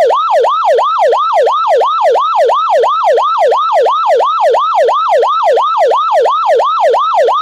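Infrared motion-sensor security alarm sounding its loud, ambulance-like siren: a fast warble of pitch sweeps, each falling from high to low, about four a second. It was set off by someone moving in front of the armed sensor.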